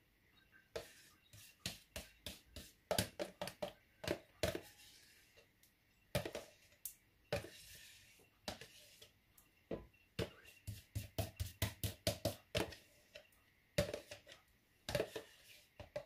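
Metal spoon scraping and knocking against a plastic yogurt tub as thick yogurt is scooped out into a bowl: irregular clicks and knocks in quick runs with short pauses.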